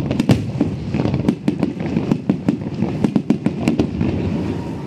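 Fireworks display, many shells bursting in quick succession: a dense run of sharp bangs and crackles over a low rumble.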